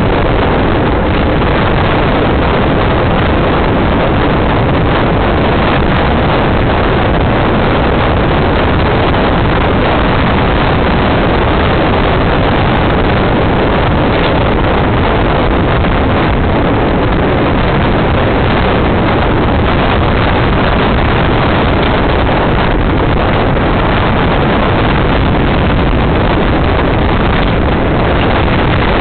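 Loud, steady wind rush buffeting the microphone of a small action camera mounted on a road bike's seat tube while the bike is ridden at speed, mixed with the rumble of the tyres and frame on the road.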